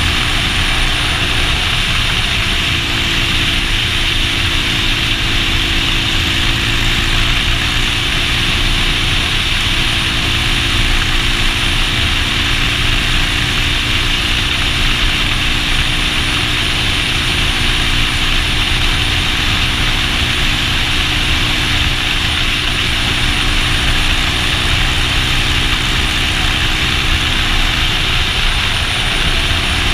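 Custom-built 40-year-old Triumph motorcycle engine running steadily at cruising speed, under loud wind rush on the microphone.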